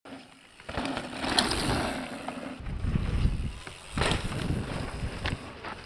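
Mountain bike riding past on a dry, dusty dirt trail: tyres rolling over loose dirt and the bike rattling over bumps, with a loud rush about four seconds in as it goes by close.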